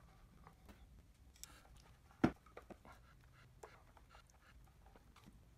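Hand screwdriver backing out wood screws from a PVC pipe: faint scratching and small clicks, with one louder sharp click a little over two seconds in.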